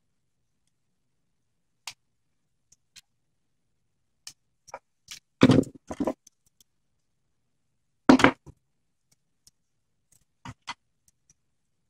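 Scattered plastic clicks and knocks from a DVD drive's plastic loader chassis being handled and pried apart by hand, with two louder clusters of knocks and rattles about five and a half seconds in and about eight seconds in.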